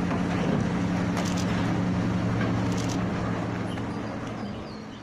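BelAZ 75601 haul truck's diesel engine running steadily with a low hum and wind noise, fading out near the end.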